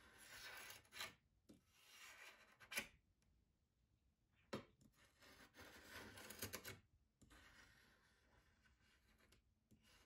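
Razor-blade scraper scraping dried paint off a glass palette in a few separate strokes, with a couple of sharp ticks from the blade.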